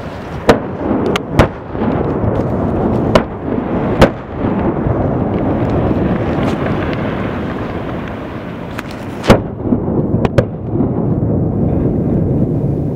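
Aftermath of a dynamite blast on a rock cliff: blasted rock and debris falling down the cliff face in a continuous loud rumble. Several sharp cracks stand out through it, the loudest about half a second, four seconds and nine seconds in.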